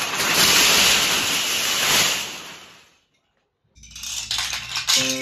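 Many wooden Kapla planks clattering as a structure topples and collapses. The dense clatter fades out about three seconds in, and a second clatter of falling planks starts after a short silence. Piano music comes in right at the end.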